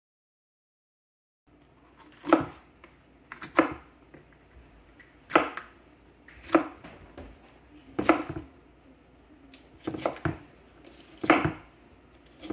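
Chef's knife slicing banana peppers into rings on a wooden cutting board, the blade knocking on the board about once a second, sometimes twice in quick succession. The chopping begins after about a second and a half of silence.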